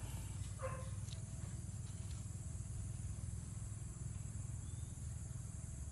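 Steady low outdoor rumble, with one short chirp about half a second in and a couple of faint ticks.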